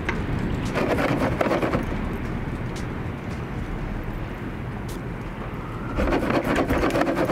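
Metal tongs clicking and scraping against a steel mixing bowl in two bursts, about a second in and again near the end, over a steady low outdoor rumble.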